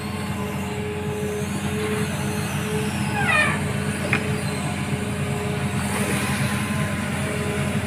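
Hitachi long-reach amphibious excavator's diesel engine running steadily under work. A short falling squeal comes a little over three seconds in, followed by a single click.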